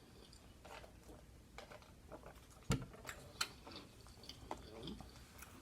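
Quiet chewing and mouth sounds of someone eating, with a few scattered sharp clicks, the loudest a little under three seconds in.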